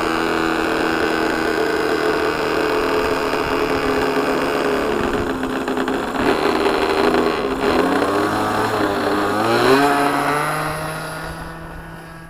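Thunder Tiger .61 nitro two-stroke engine with a quiet pipe, on a Race Cat RC plane, running at high throttle through the takeoff. Its pitch wavers and glides as the plane passes closest about ten seconds in, then the sound fades as the plane climbs away.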